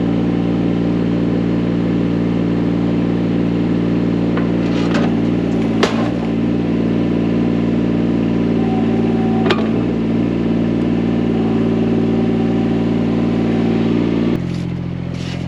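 Diesel excavator engine running steadily at working throttle, with two sharp clanks several seconds apart; the engine then drops to a lower speed near the end.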